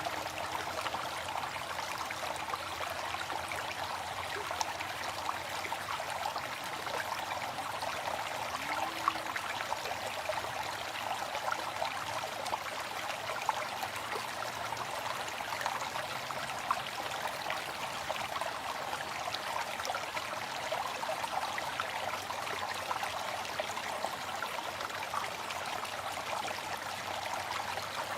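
Waterfall: a steady rush of falling water with small splashes ticking through it.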